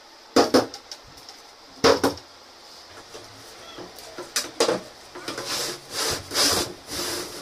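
Laminated particleboard furniture panels knocking and scraping together as a side panel is fitted onto cam-lock bolts: two sharp knocks in the first two seconds, a few lighter knocks, then a stretch of wood rubbing and scraping near the end.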